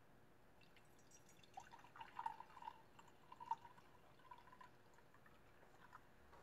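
Tea being poured into a cup: a faint liquid trickle that starts about a second and a half in and lasts about three seconds.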